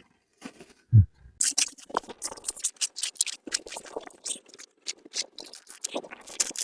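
A dull knock, then several seconds of quick, irregular scraping and crunching as polystyrene foam insulation inside the wall is cut and scraped out.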